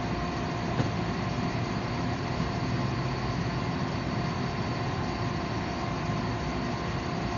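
Steady blowing hum of forge-shop equipment running, with a few faint constant tones underneath and no change in level.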